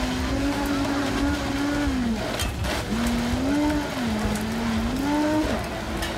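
Countertop blender motor running while blending red fruit, its whine wavering up and down in pitch and dipping twice as the load on the blades changes.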